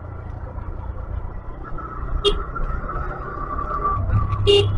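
Motorcycle engine and road noise while riding, with a short horn beep about two seconds in and another near the end.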